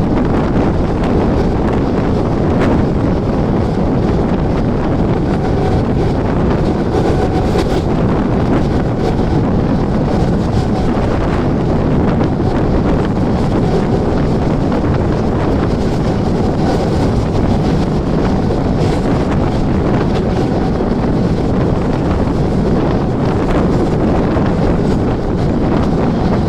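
Mumbai suburban EMU local train running at speed: a steady loud rush of wheel and track noise, with wind buffeting the microphone.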